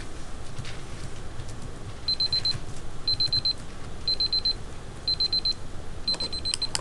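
Digital countdown timer alarm going off to signal that time is up: five bursts of rapid high-pitched beeps, about one burst a second, starting about two seconds in. A couple of sharp clicks come near the end.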